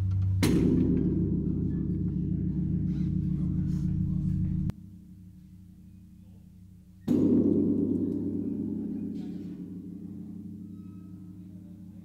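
Large Chinese bell struck twice, about half a second in and again about seven seconds in. Each strike is followed by a deep, lingering hum. The first hum cuts off suddenly after about four seconds, and the second slowly fades.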